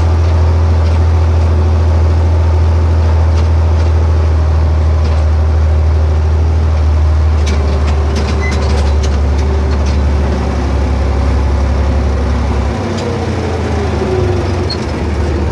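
John Deere 4020 tractor's six-cylinder engine running loud and steady while driving on the road, with a deep hum and some light rattling clicks about halfway through. Near the end the engine note drops in pitch.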